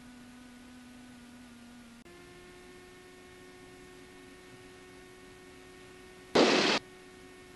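Steady electrical whine with a stack of overtones in a Cessna 172's intercom audio; its pitch jumps up about two seconds in. Near the end comes a loud burst of hiss lasting about half a second.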